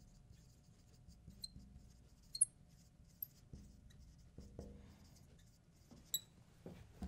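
Faint squeaks and taps of a marker writing on a glass lightboard, in a few short scattered strokes, the sharpest a little after two seconds and again around six seconds.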